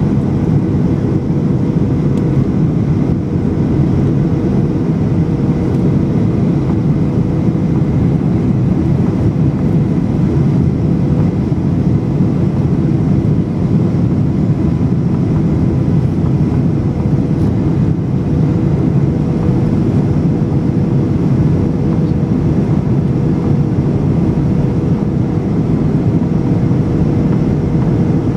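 Steady cabin noise of a Boeing 737-800 descending on approach, heard from a window seat over the wing: the CFM56-7B engines and the airflow run at an even level, with a constant mid-pitched hum in it.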